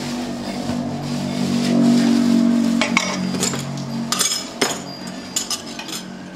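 Kitchen utensils knocking and clinking at a worktable: spoons against small bowls and a cleaver against a wooden chopping board, a handful of separate strikes in the second half. Under them a steady low hum fades out about two-thirds of the way through.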